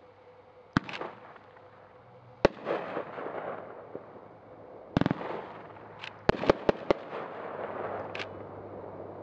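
Mad Ox Velociraptor 22-shot consumer fireworks cake firing, with sharp bangs of its shells at irregular intervals. There are single bangs about one and two and a half seconds in, a cluster around five seconds, and a quick run of four or five just after six seconds. A crackling hiss of crackle stars follows several of the bursts.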